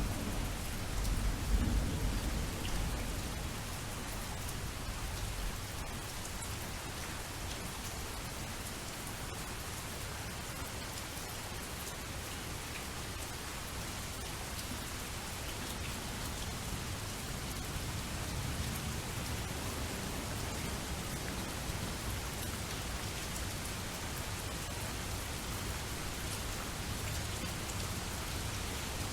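Steady rain falling, a continuous even hiss of drops. A rumble of thunder dies away over the first few seconds, with a second swell about a second and a half in.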